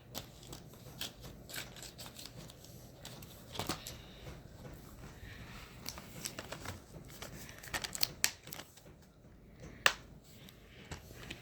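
Plastic Blu-ray case and its paper inserts being handled: light rustling with scattered sharp clicks and taps, the loudest about four, eight and ten seconds in.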